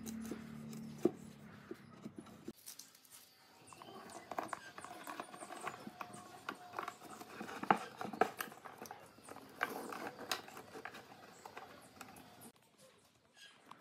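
Scattered light clicks and rattles of a strap clamp's plastic corner blocks and band as it is fitted around the top of a square wooden box and tightened, with boards being handled.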